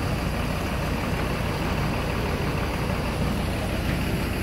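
Intercity bus's diesel engine idling steadily while the coach stands parked.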